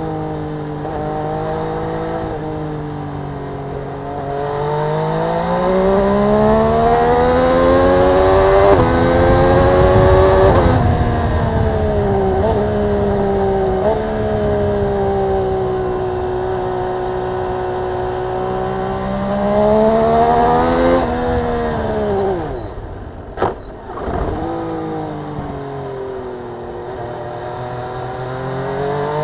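MV Agusta Brutale 800RR's inline three-cylinder engine under way, its revs climbing and falling as it pulls through the gears. About three-quarters of the way through the revs fall away, with a brief sharp crack, before the engine pulls hard again near the end.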